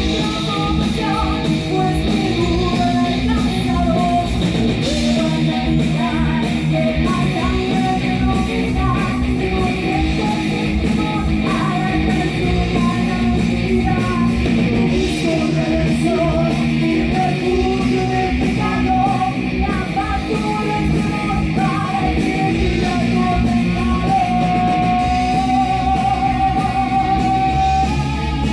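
Heavy metal band playing live: distorted electric guitars, bass and fast drums, with a long held note near the end.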